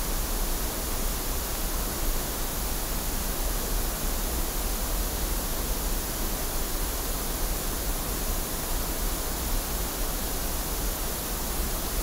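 Steady pink-noise test signal played through a loudspeaker and picked up by a Neumann U89 condenser microphone, as an even, unchanging hiss for a frequency-response measurement.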